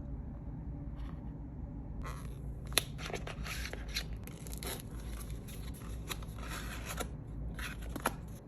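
Hands handling the watch band's packaging: rustling and scraping with scattered sharp clicks, starting about two seconds in.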